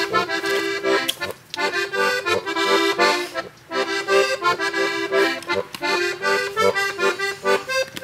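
Accordion playing an instrumental interlude of chords in short phrases, with brief breaks between them, between sung verses of an Alpine folk song.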